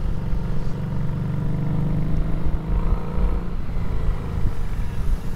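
Harley-Davidson Street 500's V-twin engine running steadily as the motorcycle rides along, with a low rumble underneath.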